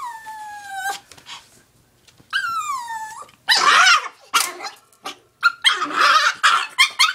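Yorkshire terrier crying in distress: two long high-pitched whines that fall in pitch, then rougher yelping cries, breaking into a quick run of short yaps near the end.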